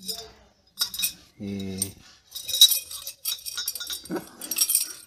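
Steel skewers and aluminium grill tubes clinking and rattling as they are handled and sorted, in a string of short metallic jingles. The loudest clink comes a little past halfway.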